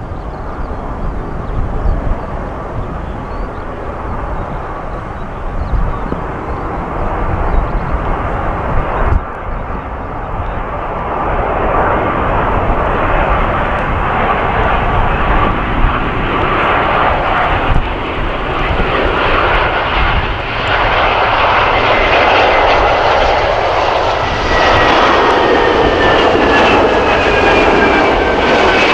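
Airbus A320's IAE V2500 jet engines on final approach, a rushing jet noise that grows louder as the airliner comes in to land. Gusty wind rumbles on the microphone underneath. Near the end a thin engine whine falls in pitch as the aircraft passes.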